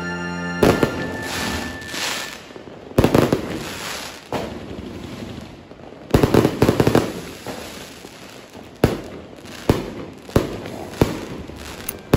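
Aerial fireworks going off: a string of loud bangs with crackling and fizzing between them, and a quick cluster of bangs about six to seven seconds in.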